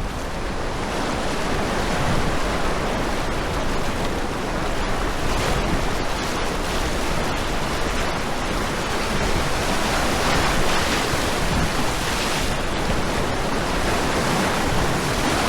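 Rushing whitewater of a river rapid, a steady loud roar of moving water.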